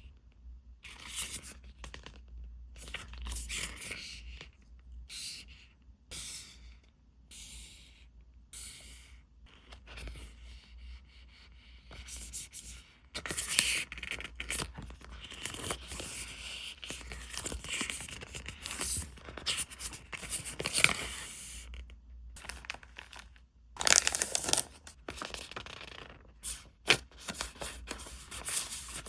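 Paper and plastic packaging being handled, rustling, crinkling and tearing in irregular bursts with short pauses.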